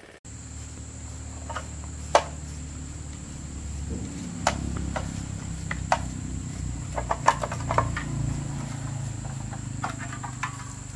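Scattered sharp knocks and clicks, as of work with tools, over a steady low hum and a constant high-pitched insect drone.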